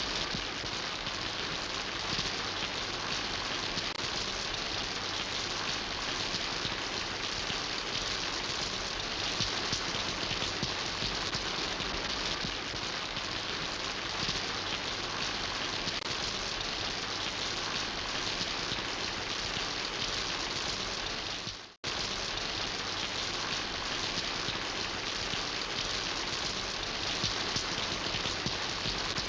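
Steady rain, an even hiss with no other sound over it. About three quarters of the way through it fades to silence for a split second and cuts straight back in.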